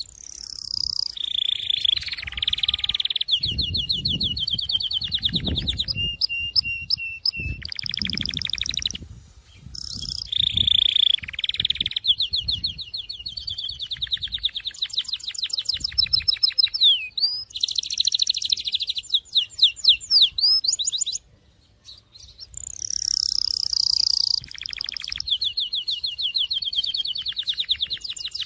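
Syrian canary singing a long song of very fast rolling trills and whistled, gliding phrases, broken by short pauses about nine and twenty-one seconds in.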